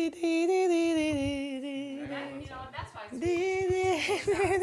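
A young man singing a tune unaccompanied in a fairly high voice, holding long drawn-out notes, with a quick wavering run of notes about four seconds in.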